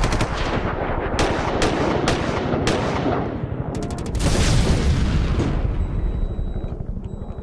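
Intro sound effects for an ink-splatter logo: a fast, loud rattling pulse with sharp cracks, a rushing burst about four seconds in, then fading away.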